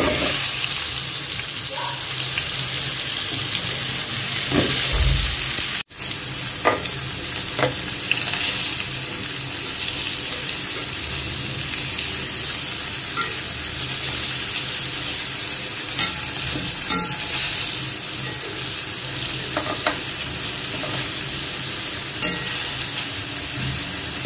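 Food frying in hot oil in a pan: a steady sizzle, with a spatula now and then clicking against the pan as it is stirred. The sound drops out for a moment about six seconds in.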